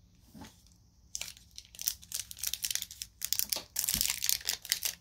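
A crimped candy wrapper being torn open and crinkled around a piece of chocolate bark: short crackles start about a second in and grow denser and louder near the end.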